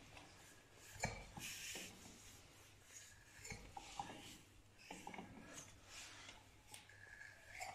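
Faint metallic clinks and scraping as a wrench on the flywheel nut turns a freshly rebuilt Peugeot 103 moped engine over by hand, working oil into its bearings, piston rings and cylinder. The sharpest knock comes about a second in.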